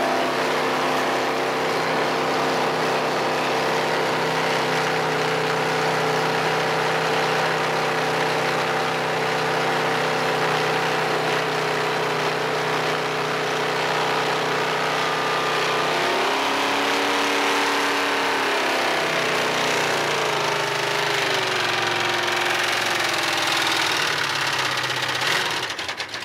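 Jet boat engine running at a steady cruising speed. About two-thirds of the way through, its pitch dips and rises, then it drops lower and falls away as the boat slows. A few knocks from the camera being handled near the end.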